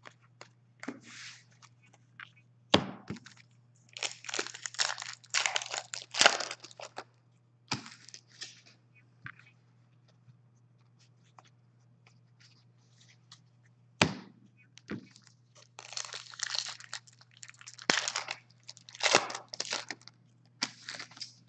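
Crinkly wrappers of 2015-16 Upper Deck Series 1 hockey card packs being torn open and crumpled by hand, in two long stretches of rustling. There are sharp clicks about three seconds in and again midway.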